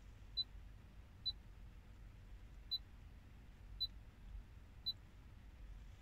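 Touchscreen head unit of a 2014 Mitsubishi Outlander PHEV giving five short, high beeps, about a second apart, one for each press of the scroll-down arrow in its settings menu. A faint low rumble lies underneath.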